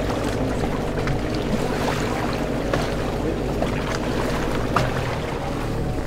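A boat's engine running steadily, with a few clicks and knocks from scuba gear being handled, one sharper knock near the end.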